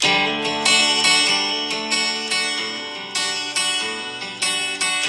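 Acoustic guitar playing a picked intro of ringing chords. The notes are struck every half second or so and die away between strokes, and there is no singing.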